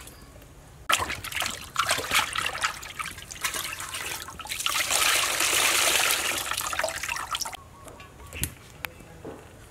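Water splashing in a metal basin as a whole raw chicken is washed by hand, then water streaming off the lifted chicken back into the basin in a steady rush for about three seconds. A few light knocks near the end.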